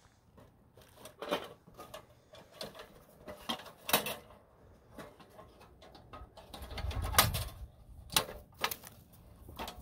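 Galvanized steel Havahart live trap being handled: scattered clicks, taps and rattles of its sheet-metal body and wire door, the sharpest about four seconds in. A brief low rumble comes about two-thirds of the way through.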